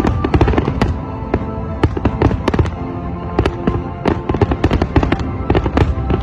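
Aerial firework shells bursting in a dense, irregular barrage, several bangs a second, with music playing alongside.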